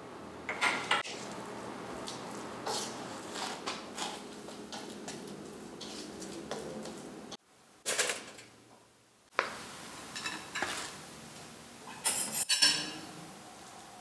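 A metal spoon clinking and scraping against a ceramic bowl as a thick spread is stirred, in a run of separate sharp clinks, some ringing briefly. The sound drops out suddenly for about two seconds midway, and there is a quick cluster of ringing clinks near the end.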